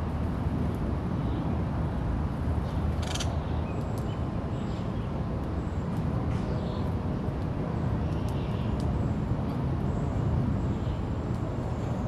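Backyard ambience: a steady low rumble with faint, scattered high bird chirps over it and one brief sharper sound about three seconds in.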